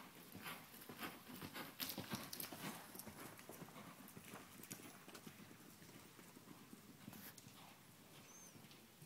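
Hoofbeats of a ridden horse cantering on soft dirt arena footing, a muffled, uneven series of thuds that is loudest over the first few seconds as the horse passes close, then fades as it moves away.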